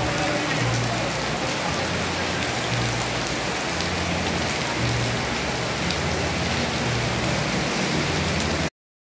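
Heavy rain falling steadily on a flooded street. It cuts off abruptly near the end.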